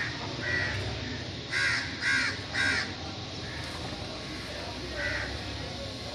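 A series of short, high animal calls: single calls near the start and half a second in, three in quick succession about a second and a half in, and another near five seconds.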